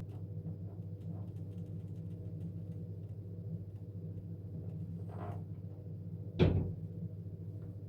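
A steady low hum, with one sharp knock about six and a half seconds in.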